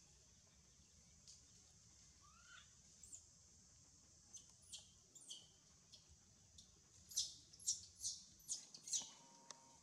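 Short, high chirping calls that fall in pitch: a few scattered ones, then five louder ones in quick succession near the end, over a faint steady high hiss.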